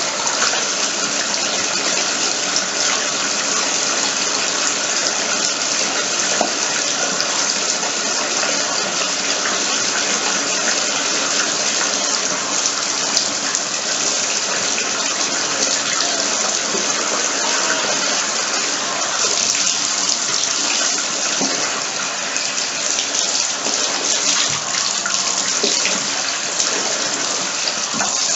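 Bathtub faucet running steadily, the stream splashing over a shoe held and turned under it by hand.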